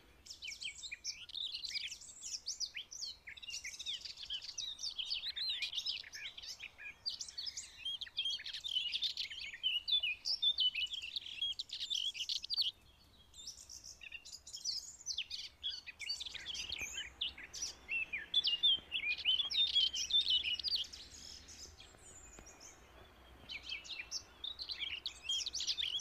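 Many small birds chirping and twittering: rapid, overlapping high calls. The calls break off briefly about halfway through and thin out near the end.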